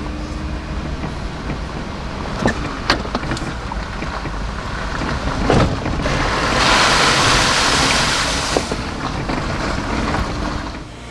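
Jeep driving with a steady rumble of engine and tyres and a few knocks, then a loud rush of water splashing for about two seconds a little past halfway through as it drives through a low-water crossing.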